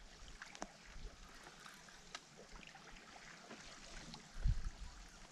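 Quiet open-air ambience: a faint even hiss with a few scattered soft ticks, and a short low rumble about four and a half seconds in.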